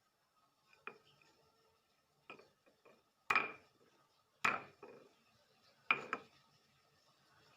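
Kitchenware being handled: a series of short knocks and clinks, the three loudest about a second apart in the middle, each with a brief ring.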